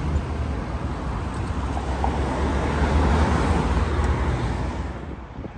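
Road traffic at a busy roundabout: a vehicle's engine and tyre noise swelling as it passes close, loudest about three seconds in, then fading away.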